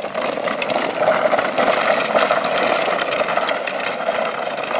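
Green Machine drift trike's hard plastic wheels rolling over rough, gritty tarmac: a steady grinding noise full of fine crackle.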